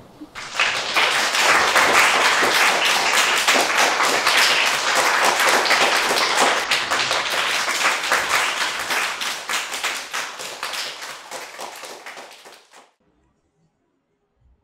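Applause: many hands clapping, setting in right after the reading ends, holding strong, then thinning out and stopping a little before the end.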